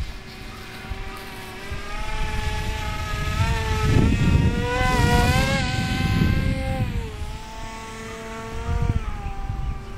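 Electric motor and propeller of a HobbyKing AXN Floater-Jet RC plane whining in flight, its pitch rising and falling with the throttle and dropping about seven seconds in. Wind rumbles on the microphone, loudest around the middle.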